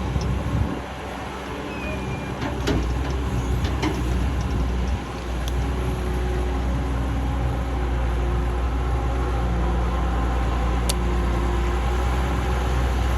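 Heavy diesel engine of construction machinery running steadily with a deep hum, with a few sharp metallic clanks over it.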